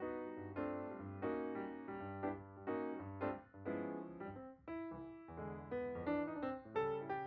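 Background music led by piano, several notes a second.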